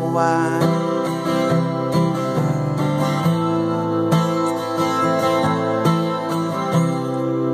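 Acoustic guitar strummed in a steady rhythm, chords ringing, with the tail of a sung line just at the start.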